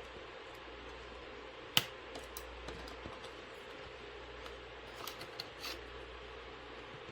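Small sharp plastic-and-metal clicks and taps as a tablet's motherboard is pushed and fitted into its plastic housing, not yet snapping into place: one sharp click a little under two seconds in, a few lighter taps after it, and a short run of clicks around five seconds in, over a steady low hum.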